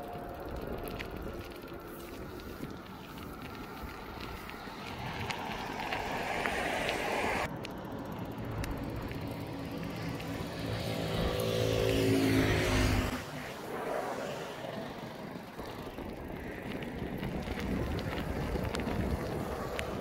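Road traffic passing: car tyre and engine noise swelling and fading, loudest about twelve seconds in as a vehicle goes by with a falling engine note, which cuts off suddenly.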